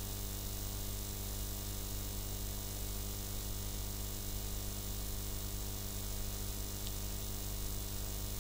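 Steady electrical hum with a layer of hiss, unchanging throughout: the background noise of the recording setup, with nothing else sounding.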